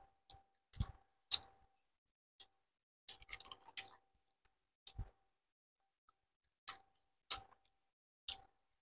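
Quiet eating sounds of chicken feet being eaten by hand: short, sharp mouth smacks and chewing clicks, scattered about one a second, with a small cluster of them about three seconds in.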